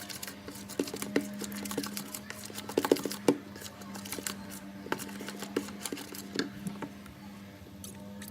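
Irregular light clicks and taps from handling and mixing slime ingredients in containers, over a steady low hum.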